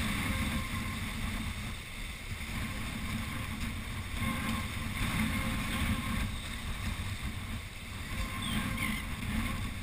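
Wind buffeting the microphone over waves surging and washing against jetty rocks, a steady rumbling noise that rises and falls.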